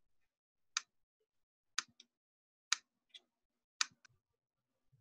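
Four sharp clicks about a second apart, some followed by a fainter click, with near silence between.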